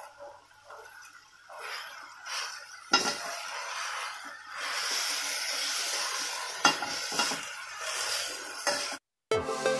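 Perforated steel ladle stirring and scraping gongura (sorrel) leaves with onions and tomatoes in a steel kadai, with hot oil sizzling and sharp clinks of metal on the pan, louder from about three seconds in. Near the end the sound cuts out briefly and background music starts.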